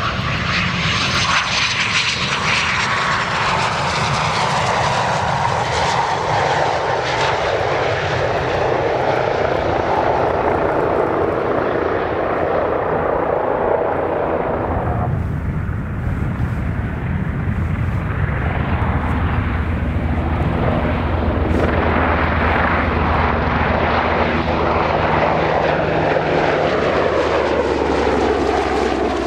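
Loud aircraft engine noise as a plane passes close by, its pitch falling as it goes. About halfway through the sound changes abruptly to a lower, steadier engine drone.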